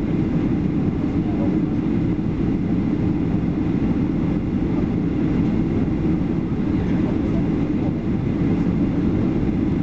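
Steady roar of engine and airflow noise inside the cabin of a Boeing 737-800 descending on approach, heard from a seat behind the wing; the sound is deep and unchanging, with no distinct events.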